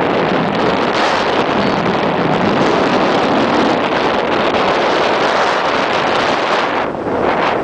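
Strong wind buffeting the microphone: a loud, steady rushing noise that eases briefly about seven seconds in.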